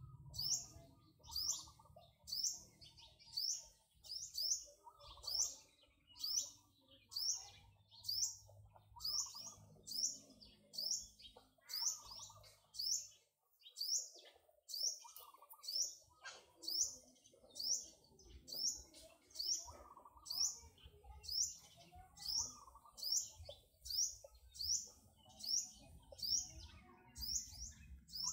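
A bird repeating one short, high chirp about once a second in a steady rhythm, with fainter lower calls and rustling beneath.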